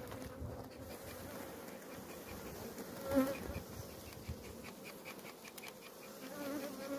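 Honeybees buzzing over the open top bars of a ten-frame hive: a steady hum, with a louder wavering buzz about three seconds in.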